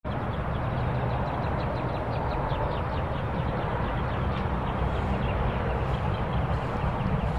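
Outdoor ambience: a steady low rumble, with a bird's quick run of repeated high chirps in the first half.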